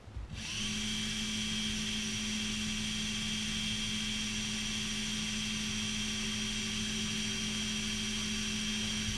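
Cordless drill running at a steady speed with a feather duster spinning in its chuck: a steady motor whine that spins up just after the start, holds an even pitch and cuts off suddenly at the end.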